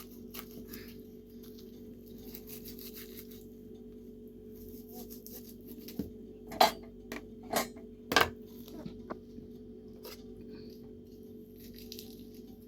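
Clinking and knocking of metal utensils or dishware, with three sharp knocks a little past the middle, over a steady low hum.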